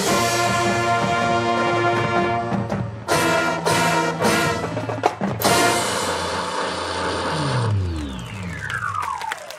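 Marching band brass and percussion playing the closing bars of a show: a held chord, a few short accented hits, then one big hit held out. Near the end the music gives way to a falling sweep in pitch, like something powering down.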